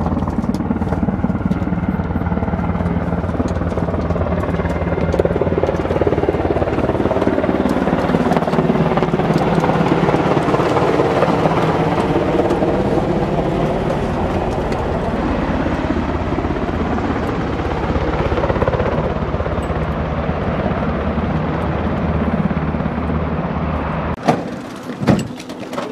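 UH-60M Black Hawk helicopter running close by, its twin turboshaft engines and rotor giving a loud, steady whine and fast blade thrum. Near the end the helicopter noise drops away abruptly and a few sharp knocks are heard.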